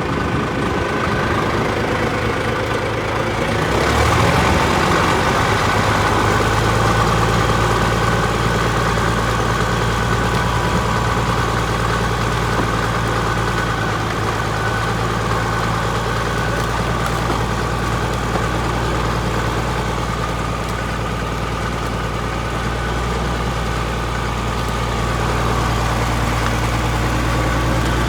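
Caterpillar D6 bulldozer's diesel engine running steadily, growing louder and heavier about four seconds in as the dozer takes up load pushing fallen trees.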